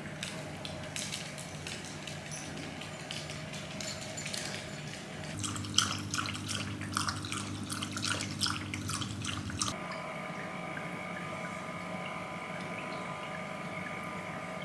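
A Shiba Inu lapping water from its bowl: a quick, rhythmic run of wet laps that gets louder about halfway through and stops at about ten seconds in. A steady hum runs underneath.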